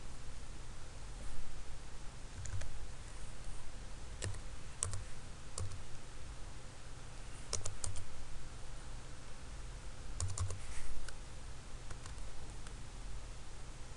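Computer keyboard keys clicking in short scattered runs as a number is typed, over a steady low hum.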